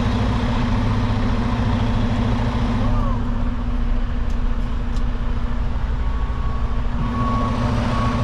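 Semi truck's diesel engine running steadily at low revs while the loaded tanker rig is maneuvered. About six seconds in, a backup alarm starts beeping about once a second.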